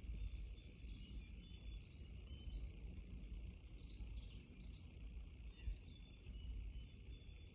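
Chickadees calling faintly: many short, high chirps scattered throughout, over a steady low rumble.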